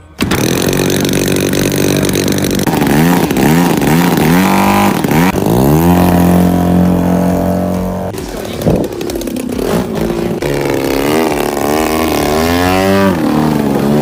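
Single-cylinder-type gasoline engine of a large radio-controlled aerobatic airplane running hard, its pitch repeatedly rising and falling as the throttle changes and the plane passes.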